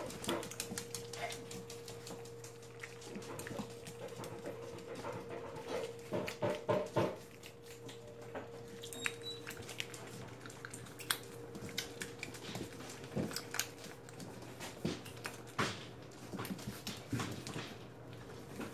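Puppies nursing from their mother on a tile floor: small whimpers, soft clicks and scuffling as they push in to feed, over a steady low hum.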